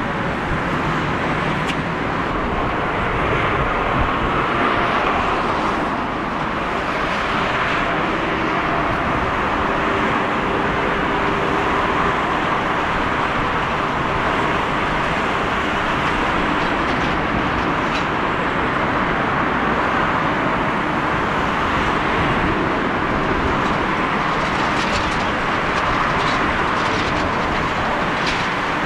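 Steady roar of airliner jet engines at takeoff power, as a Boeing 747 climbs out and then a Boeing 777 freighter rolls down the runway and lifts off.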